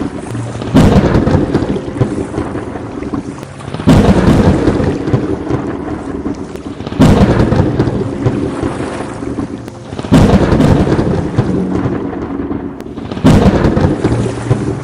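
Thunderstorm: rolls of thunder over steady rain. Five sudden loud booms come about every three seconds, each fading away before the next.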